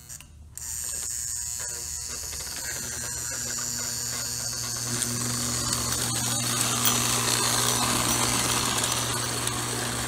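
Lionel toy steam locomotive running on three-rail track: its electric motor whirs with a steady hum and its wheels rattle over the rails, starting about half a second in and growing louder as the train comes near and passes.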